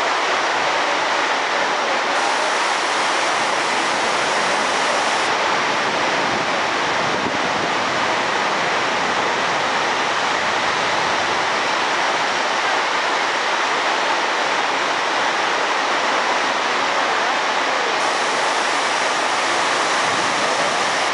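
Heavy rain pouring down in a steady, loud downpour.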